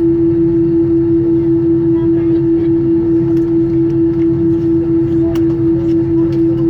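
Cabin of an Airbus A321-200 after landing: a steady hum with one strong, unbroken low tone, and a few faint clicks and rustles from the cabin.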